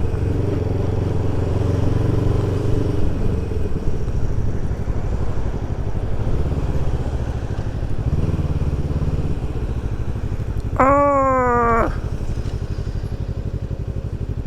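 Suzuki Inazuma 250 parallel-twin motorcycle engine running at low revs in traffic, easing off a few seconds in and picking up again later. Near the end, a single pitched call with a wavering pitch lasts about a second.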